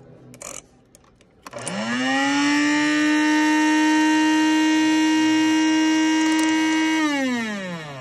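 Cuisinart DBM-8 burr grinder's motor: a couple of light clicks, then about a second and a half in it spins up with a rising whine, runs at a steady high-pitched whine for about five seconds, and winds down with a falling pitch near the end.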